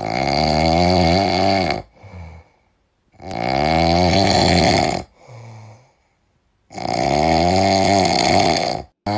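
Snoring in sleep: three long, loud snores about three and a half seconds apart, each followed by a shorter, fainter breath sound.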